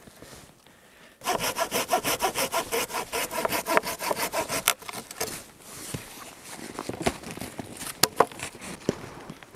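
A saw cutting wood with quick, even strokes, starting about a second in and stopping after about four seconds. Then a few sharp clicks and knocks.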